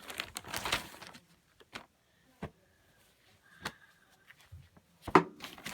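Shirt packaging crinkling as it is handled, then a quiet stretch with a few light clicks, and a sharp knock about five seconds in followed by more rustling.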